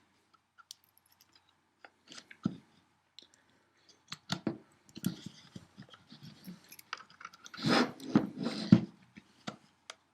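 Small screwdriver prodding and prying at the safety button in a Beretta CX4 Storm's polymer lower receiver: irregular clicks and short scrapes of metal on plastic and metal, busiest about three-quarters of the way through. The part is stuck and does not come free easily.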